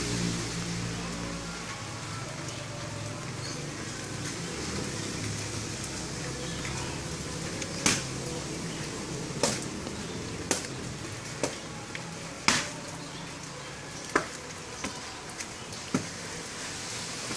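Hand and forearm strikes knocking against a martial-arts training dummy made from old rubber tyres: about ten sharp, irregular impacts beginning about eight seconds in, over a steady hiss of rain.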